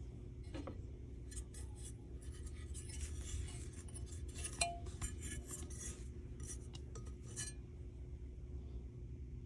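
Tools and small metal furnace parts being handled, with scattered light clinks and taps and one sharper ringing clink about four and a half seconds in.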